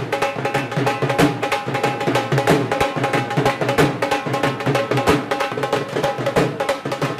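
Dhol and nagada drums playing a fast, steady beat of dense strikes.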